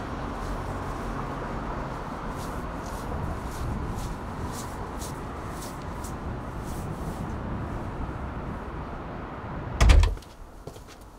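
Steady hum of road traffic with footsteps on pavement, about two a second. A single loud thump about ten seconds in is the loudest sound.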